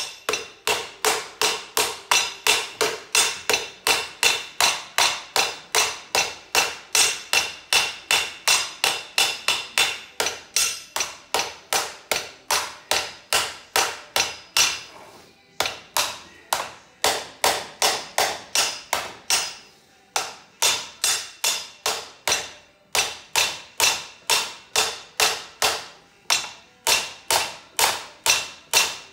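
Hand hammer striking sheet metal on a steel anvil in a steady rhythm of about two to three ringing metallic blows a second, with a few short pauses in the second half.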